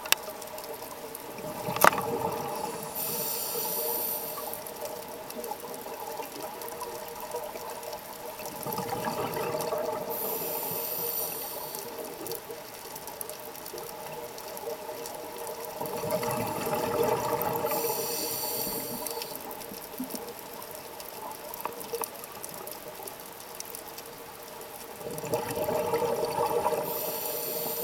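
Scuba diver breathing underwater through a regulator: a rush of exhaled bubbles about every seven to eight seconds, each followed by a short regulator hiss, four breaths in all, over a steady faint hum.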